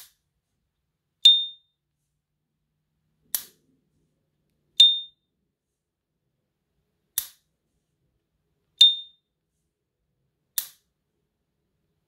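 S.T. Dupont lighter lid worked open and shut three times. Each opening gives the brand's short, high metallic ping, which rings briefly, and each closing gives a sharp click.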